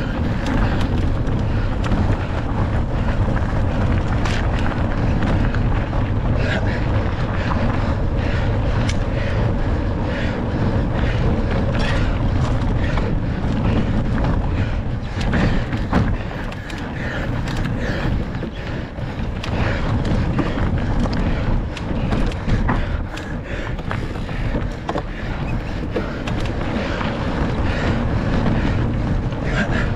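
Cross-country mountain bike ridden at speed: wind rumbling on the microphone and tyres rolling over dirt and gravel, with frequent clicks and knocks from the bike rattling over rough ground.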